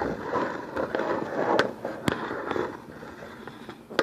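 Camera handling noise as the camera is slid and repositioned on the counter: a rough scraping rustle with two sharp clicks about halfway through, dying down in the last second or so.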